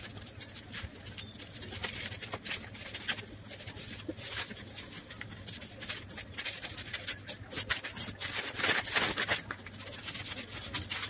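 Scissors cutting through newspaper: a run of irregular crisp snips with the paper sheet rustling, busiest about eight to nine seconds in.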